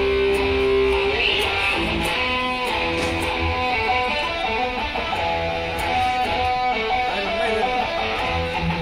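Electric guitar played through an outdoor PA's line-array speakers during a sound check, a melody of held single notes stepping up and down.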